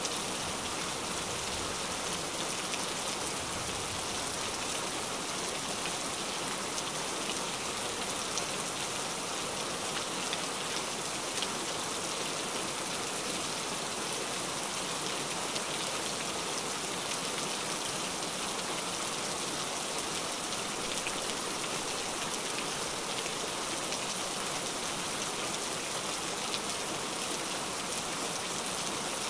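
Heavy rain falling steadily: a dense, even hiss with individual drops faintly standing out.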